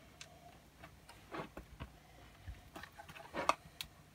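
Faint scattered clicks and light knocks of 3D-printed plastic parts being handled and slid into place, the loudest about three and a half seconds in.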